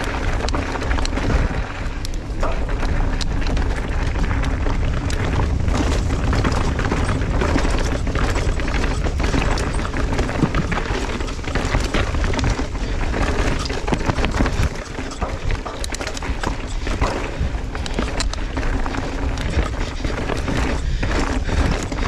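Mountain bike being ridden along a trail, heard from a GoPro on the rider: steady wind rumble on the microphone under a constant clatter of small knocks and rattles from the tyres and bike.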